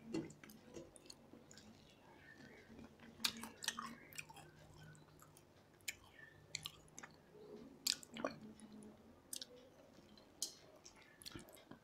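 Two people eating rice and curry by hand: quiet chewing and mouth smacks, with scattered short, sharp clicks.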